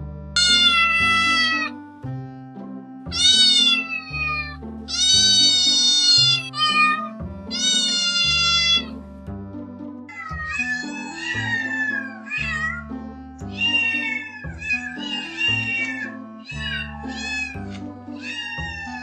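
Kitten meowing: four long, loud, high-pitched meows in the first nine seconds, then a quicker run of shorter, quieter meows, over background music with a steady low beat.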